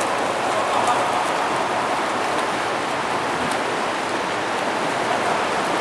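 Water splashing from swimmers' front-crawl strokes in a swimming pool, a steady wash of churning water.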